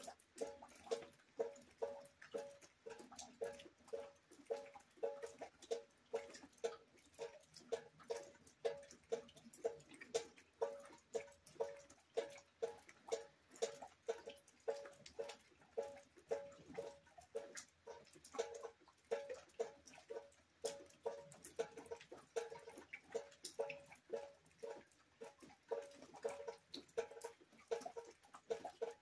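Rain water dripping into a bucket: a steady, slightly irregular run of hollow, pitched plinks, about two to three drops a second, each ringing on the same note.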